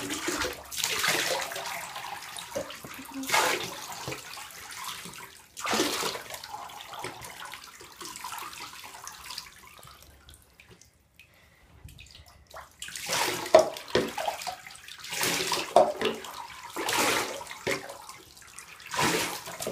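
Water poured from a plastic cup over a cat in a bathtub, splashing in a series of separate pours with a lull near the middle, as the shampoo is rinsed out of its fur.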